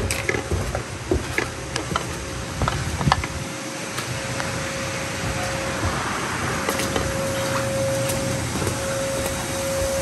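A machine running with a steady hum and a thin whine that grows stronger about halfway through, and a few sharp knocks in the first three seconds.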